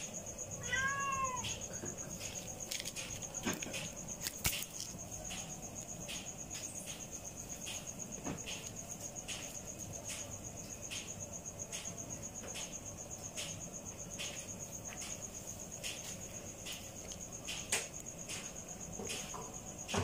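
A cat gives one short meow about a second in, rising then falling in pitch, over a steady high chirring of crickets. Scattered soft clicks are heard.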